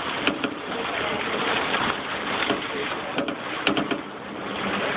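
Storm wind and waves breaking over a dock and a covered boat: a dense, steady rush of wind and surf, with a few sharp knocks near the start and again past three seconds in.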